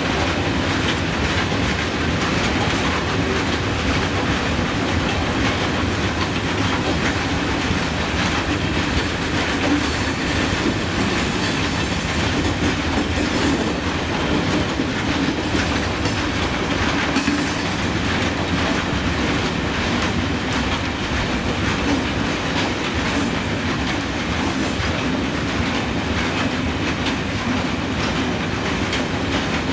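Freight train of ČD Cargo hopper wagons rolling steadily past, the wheels clacking over the rail joints in a continuous rumble. A few brief high wheel squeals come and go around the middle.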